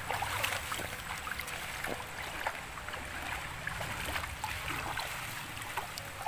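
Shallow stream running and babbling over stones, with water sloshing and splashing as a plastic bag is dipped in and emptied into it.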